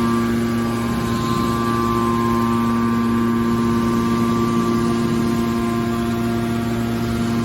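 Hydraulic scrap-metal baler's motor and hydraulic pump running with a steady hum.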